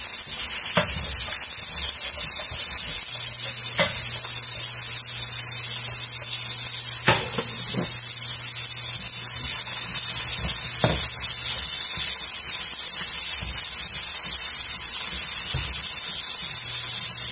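Chopped cauliflower frying in a hot nonstick pan: a steady sizzle, with a few sharp taps as a spatula stirs it against the pan.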